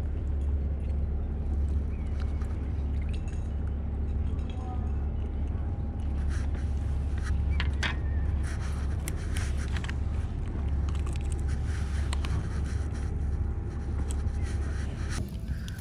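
Steady low rumble, with a run of small clicks, taps and scrapes from about six seconds in as a freshly caught small fish flaps on the concrete quay and is clamped with a fish grip to be unhooked.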